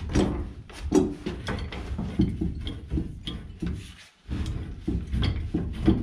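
Pipe wrenches turning threaded steel gas pipe into a fitting: a run of rapid metal clicks and creaks as the threads are tightened, with a short pause about four seconds in.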